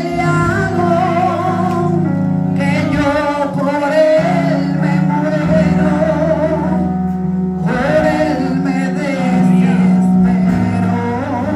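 Live gospel worship music: singing into microphones over sustained keyboard chords, amplified through the hall's PA speakers.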